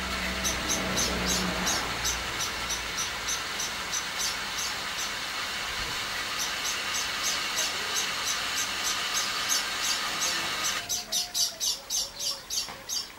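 A bird chirping over and over, short high chirps about three a second. A steady background hiss stops suddenly near the end, leaving the chirps clearer.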